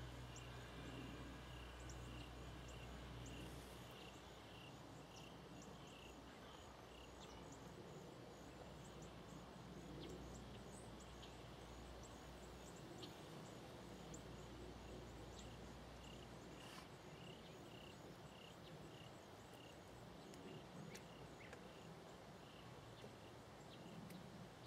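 Near silence: quiet field ambience with faint insect chirps repeating about twice a second.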